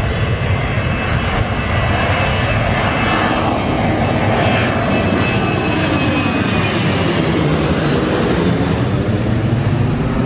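Jet airliner's engines passing close by: loud, steady engine noise whose tone sweeps and shifts as the aircraft goes past.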